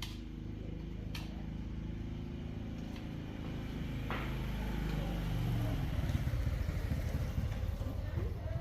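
Motorcycle engine running, growing louder and rougher about halfway through.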